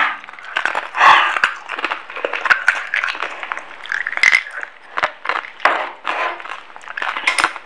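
A man panting and sucking air in short hissing breaths through an open mouth, a reaction to burning chili heat after ghost-pepper-spiced eggs, with scattered sharp mouth clicks between breaths.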